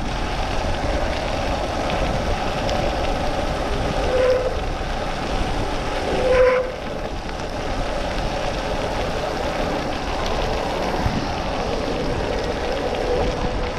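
Steady riding noise from a Spark Cycle Works Bandit electric moped on a wet road at speed: a continuous rush of wind and tyre noise with a humming tone underneath. Two brief louder tones stand out about four and six and a half seconds in.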